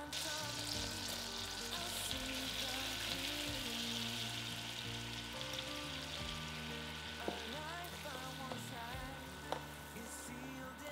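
Food sizzling in a hot frying pan, starting suddenly and easing off after about six seconds, with two short clicks later on.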